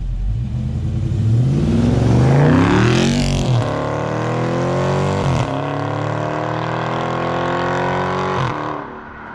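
Dodge Charger Scat Pack's 6.4-litre Hemi V8 on its stock exhaust accelerating hard through the gears. Its pitch climbs and then drops sharply at each of three upshifts, loudest a couple of seconds in, and it fades near the end as the car pulls away.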